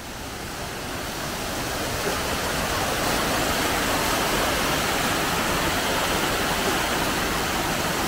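Small waterfall cascading over rocks: a steady rush of falling water that grows louder over the first few seconds, then holds steady.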